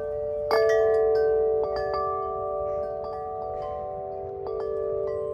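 Large wind chime ringing in the wind: tubes struck a few times at uneven intervals, the loudest strike about half a second in, with deep tones ringing on and overlapping.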